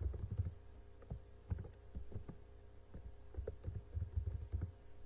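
Typing on a computer keyboard: irregular keystrokes in short clusters with brief pauses between.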